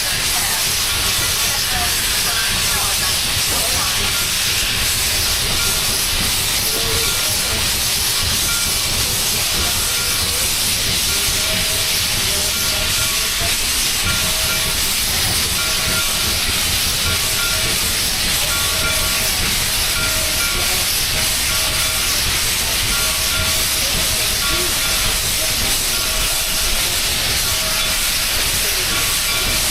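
Steam locomotive letting off steam with a steady, loud hiss and no chuffing.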